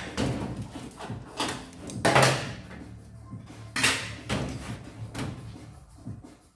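Steel rear wheel arch repair panel being handled against the car body and its clamps: an irregular series of metal clunks and scrapes, the longest scrape about two seconds in.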